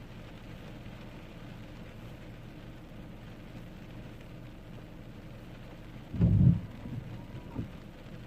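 Steady rushing outdoor noise, with a loud, short, low thump about six seconds in and two smaller knocks just after.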